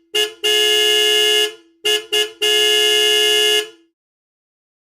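Car horn honking loudly in a pattern: a short toot, a long blast of about a second, two quick toots, then another long blast.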